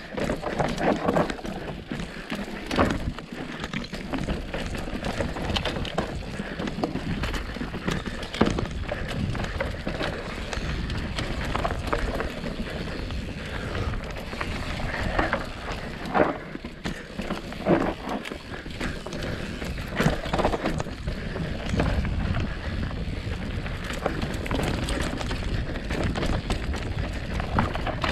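Mountain bike riding down a dirt trail: knobby tyres rolling over dirt and rocks, the bike rattling, with sharp knocks over bumps every few seconds.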